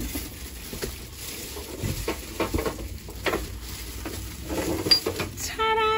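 Clear plastic wrapping rustling and crinkling as a stainless steel gas cooktop is handled and turned over in its packaging, with scattered light knocks. Near the end a steady held note starts.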